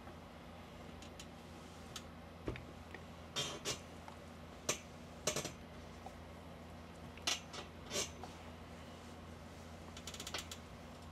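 Quiet ironing sounds: scattered brief swishes and clicks as clothes and the iron are handled, with a quick rattle of clicks near the end, over a steady low hum.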